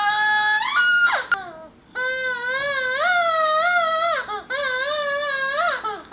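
Young child's voice making a long, high-pitched held squeal, three times, each call wavering a little and ending in a quick downward slide: a child doing the 'most annoying sound in the world'.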